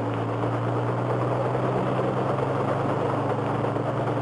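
Kaman HTK-1K drone helicopter hovering low: a steady drone from its engine and intermeshing twin rotors, holding one even pitch.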